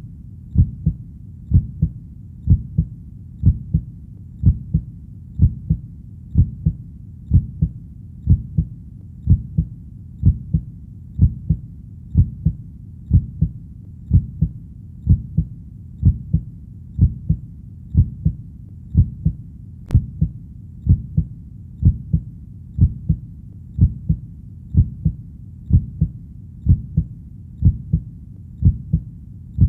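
Heartbeat sound: double lub-dub thumps repeating steadily at about one beat a second, over a faint low rumble. A single faint click about two-thirds of the way through.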